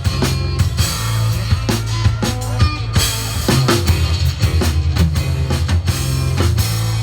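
Instrumental passage of a rock song: a drum kit playing a steady beat over a prominent bass line, with no singing.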